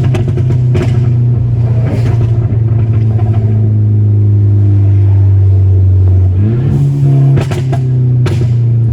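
Tuned Mk6 Volkswagen GTI's 2.0-litre turbocharged four-cylinder engine running at a steady drone, its pitch sagging slowly, then climbing sharply about six and a half seconds in and dropping back near the end. A few sharp cracks from the exhaust's pops-and-crackles tune come through on the overrun.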